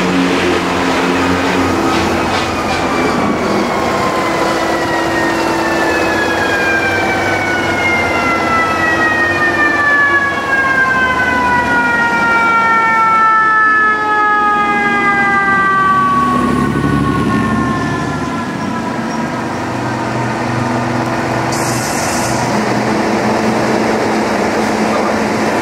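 A fire engine's siren winds down in one long, slowly falling wail that lasts about fifteen seconds. The truck's engine rumbles under it, and a short hiss comes near the end.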